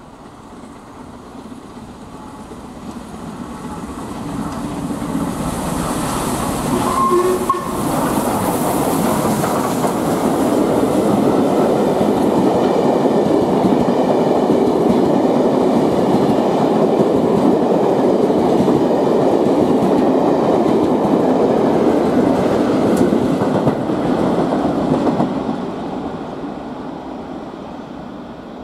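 LMS Royal Scot class 4-6-0 steam locomotive No. 46100 and its train of coaches running through at speed. It grows louder as it approaches, the locomotive passes about seven seconds in, then the steady rumble of the coaches' wheels on the rails goes on and fades away over the last few seconds.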